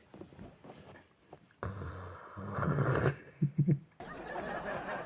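A person's breathy vocal sounds: a long, noisy stretch starting about one and a half seconds in, then three short bursts, like stifled laughter or a snore. A faint steady hiss follows a sudden change near the end.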